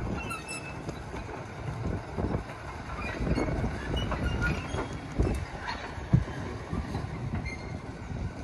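Small diesel shunting locomotive and a Shark brake van rolling away over jointed track: wheels clanking over the rail joints, with brief wheel squeals over a low engine rumble. Two sharper clanks stand out about five and six seconds in.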